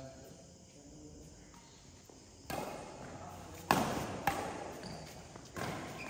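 Badminton rackets striking a shuttlecock in a doubles rally: a string of sharp hits about a second apart, starting about two and a half seconds in, each echoing briefly around a large hall.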